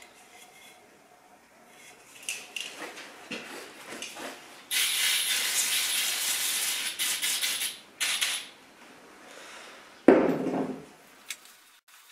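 Spray hissing in one long burst of about three seconds, then a short second burst, after some light clicks and handling. A single dull thump near the end.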